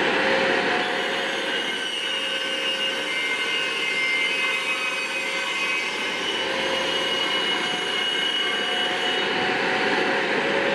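Circular saw on a Pro-Cut 50 sliding saw guide running at full speed as it is pushed through a clamped panel, a steady motor whine with the rasp of the blade cutting.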